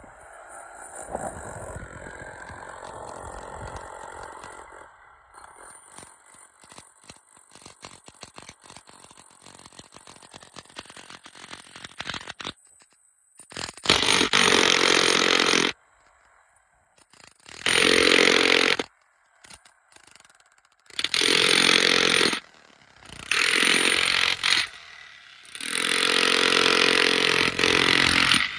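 Jackhammer breaking concrete: light scraping and clattering for the first twelve seconds or so, then five loud runs of hammering, each lasting one to three seconds with short pauses between.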